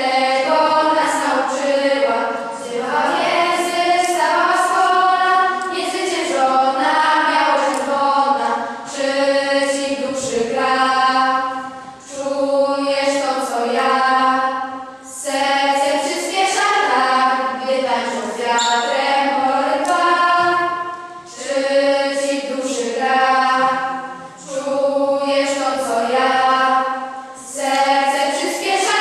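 A choir of schoolgirls singing a slow song in long held phrases, with short breaks for breath between them.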